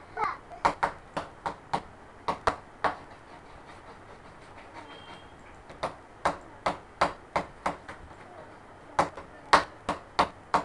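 Sharp knocks or taps, about three a second, in three runs of six to nine strokes with pauses of a few seconds between them.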